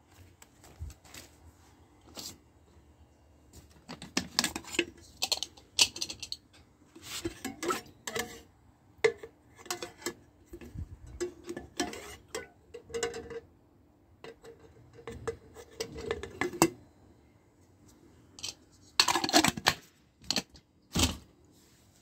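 Metal stovetop percolator coffee pot being handled and taken apart: its perforated basket and lid clink, knock and scrape against the pot in irregular runs of metallic knocks, with a louder clatter near the end.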